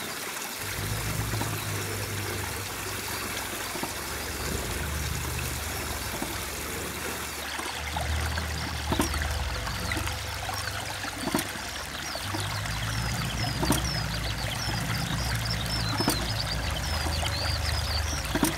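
Water pouring and trickling around a Glockemann water-powered piston pump sitting in a ditch fed by a culvert. From about halfway in, a sharp knock comes about every two and a half seconds as the pump cycles.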